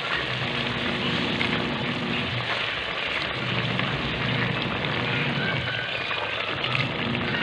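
Steady hiss and crackle of chicken and saba banana adobo cooking in an aluminium pot on the stove, with a low hum underneath that swells and fades.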